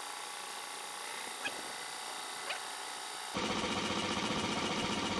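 Homemade DC gear-motor piston air compressor running while it pumps air into a balloon: a steady whine with a couple of faint ticks, then about three and a half seconds in the sound jumps suddenly to a louder, rapidly pulsing run of the motor and piston.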